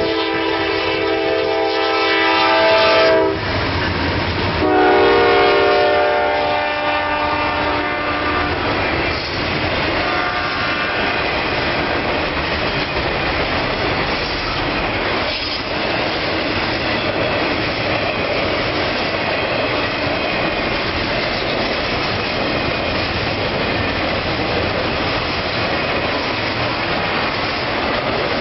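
Locomotive multi-note air horn sounding two long blasts, the first about three seconds and the second about four, fading away by about ten seconds in. Then the steady rumble and wheel clatter of an intermodal freight train rolling past.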